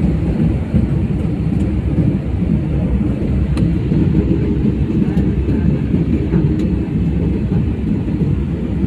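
Steady low rumble of engine and airflow noise inside a passenger jet's cabin, with a few faint clicks.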